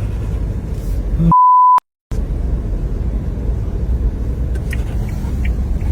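Steady low rumble, broken about 1.4 seconds in by a loud, half-second single-pitch beep, the kind used to bleep out a word. A brief moment of dead silence follows, then the rumble resumes.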